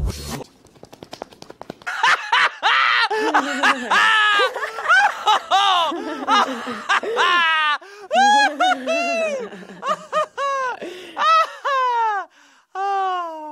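A person laughing in a rapid string of high-pitched 'ha's, each rising then falling in pitch, from about two seconds in with short breaks.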